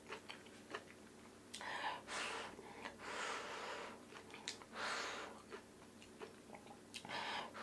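Close-miked eating of oyster rice soup: chewing, with several short noisy slurps from a spoon and a few light clicks.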